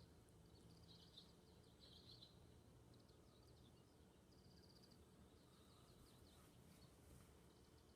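Faint birdsong: small birds twittering in quick bursts of high chirps, busiest in the first three seconds and sparser after, over a faint low background hum.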